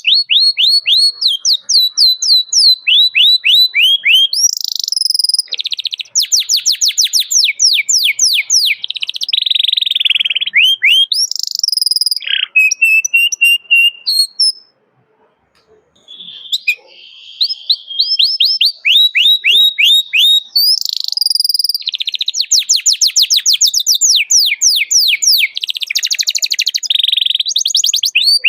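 Domestic canary singing loudly in full song: fast trills and rapid runs of repeated chirps and sweeping notes. The song breaks off for about a second and a half midway, then starts again.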